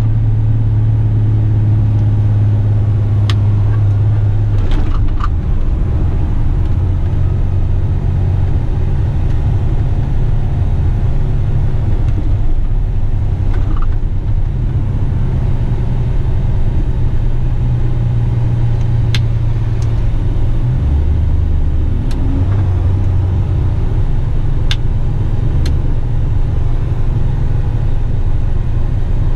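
Fully loaded Western Star dump truck's diesel engine running while driving, heard inside the cab: a steady low drone whose pitch shifts several times as the truck changes speed, with a few faint clicks.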